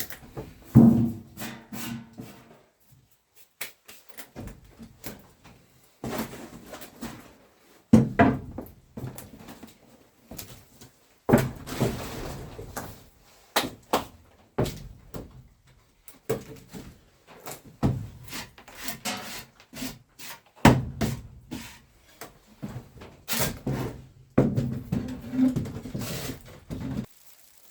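Irregular knocks, thuds and scraping from someone handling things in a small wooden room, coming in bursts with short pauses between them.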